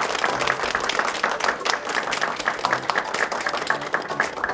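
A small group applauding: many hands clapping quickly and unevenly.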